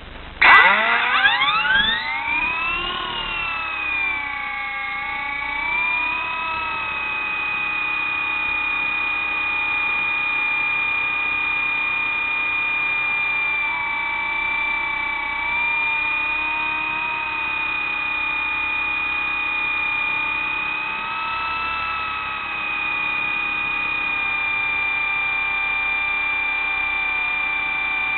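Radio-controlled model helicopter's motor and rotor spooling up about half a second in, the whine rising quickly in pitch. It then holds a steady high whine, with small dips and rises in pitch.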